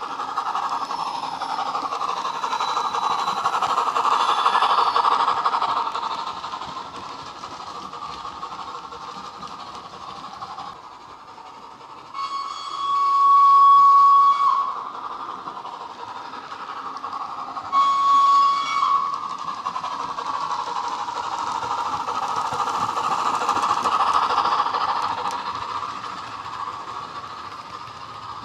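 DCC sound decoder in a Hornby Dublo LNER A3 Flying Scotsman model playing steam locomotive running sounds through its tender speaker as the train runs. The sound swells twice as the model passes close. It gives two whistle blasts about twelve and eighteen seconds in, the first longer.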